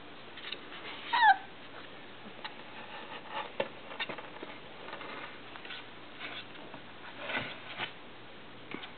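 Irish Setter puppy, three and a half weeks old, giving one short squeal that falls in pitch about a second in, then soft scuffling and faint squeaks as the pups scramble in their whelping box trying to get out.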